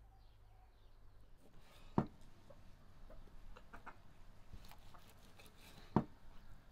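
Knife cutting through cooked beef tongue onto a thick wooden chopping board: two sharp knocks of the blade striking the board about four seconds apart, with lighter taps and scrapes between.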